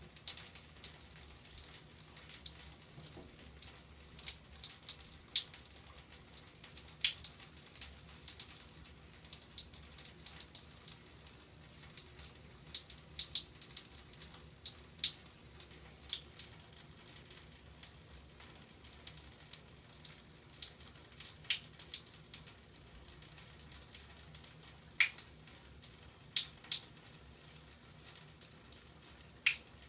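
Water trickling, with many small irregular drips and splashes, over a faint low hum.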